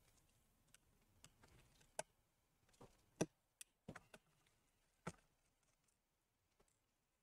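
Scattered light clicks and taps of small tools and parts being handled on an open laptop's internals, about half a dozen in all, the sharpest a little after three seconds in.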